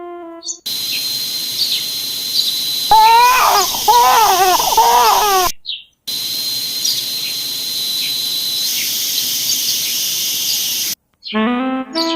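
Jungle ambience of insects and bird chirps with a steady high insect drone. About three seconds in, a loud wavering high-pitched cry lasts two to three seconds and breaks off. The ambience then resumes, and music starts near the end.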